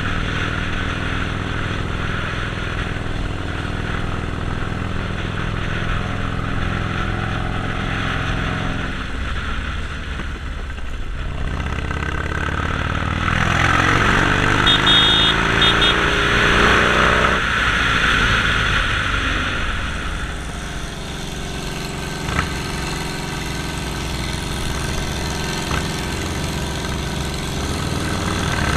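Harley-Davidson Sportster Forty-Eight's 1200 cc V-twin engine running under way. Its pitch rises and falls about halfway through, then it settles back to a steady note.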